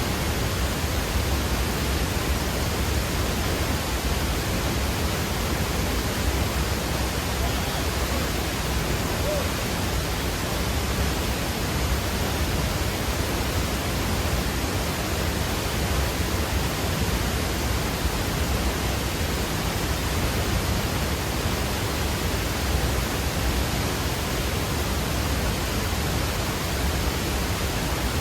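Waterfall: a steady rush of falling water, an even noise with a deep low rumble and no breaks.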